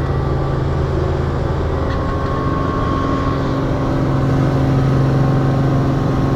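Helicopter engine and rotor running steadily, heard from inside the cabin: a continuous loud hum with a steady whine above it.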